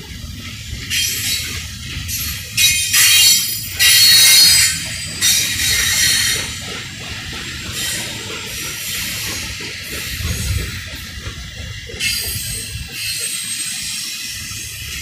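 Union Pacific double-stack intermodal freight train rolling past, its cars rumbling steadily over the rails. Louder bursts of high-pitched wheel screech come about three to five seconds in and again near the twelve-second mark.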